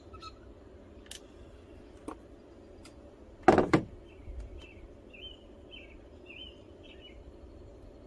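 Small birds chirping in short repeated phrases outdoors, with a few light clicks and, about three and a half seconds in, a loud double knock of a hand tool being set down on a hard surface.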